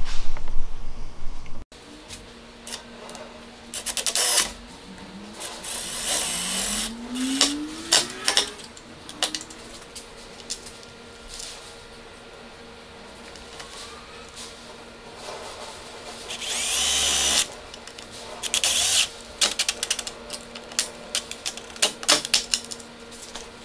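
Power drill driving screws through pulley bearings into a pine beam in several short runs, the motor's pitch rising as it speeds up, with clicks and knocks of handling between runs.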